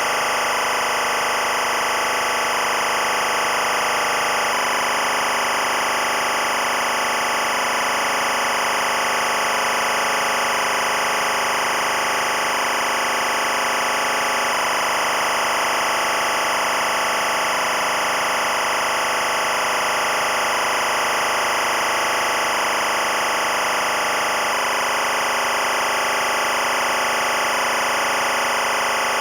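Experimental electronic sound-design music: a dense, unchanging wall of noise-like drone, with a faint repeating pulse in the middle of the range.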